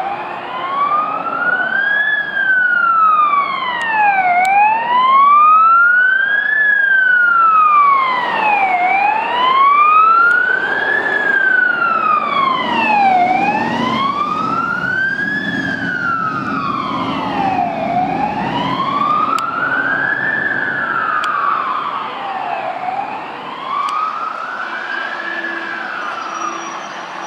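Wail sirens of two fire engines, the lead one a Scania P360CB, with Gamet electronic siren gear. Each rises and falls slowly about every four and a half seconds, the two sweeps slightly out of step. Loudest as the trucks pass, then fading as they move off.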